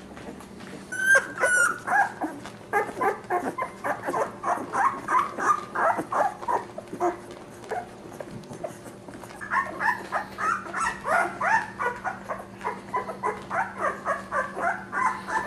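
Two-week-old pit bull puppies squeaking and whimpering while nursing: a rapid string of short high cries, several a second, with a brief pause about halfway through.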